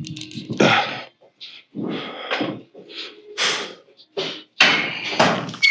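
A man breathing hard through a series of heavy, rough exhales about once a second, some with a bit of voice in them. He is winded after a set.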